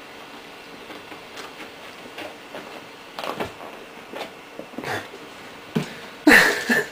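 Kitten scrabbling and clawing on a leather office chair: scattered scratching and rubbing, with a louder, harsher sound lasting about half a second near the end.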